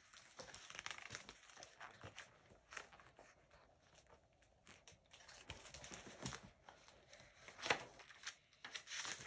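Paper pages of a hardcover picture book being handled and turned: faint rustling and soft handling noises, with a louder page flip near the end.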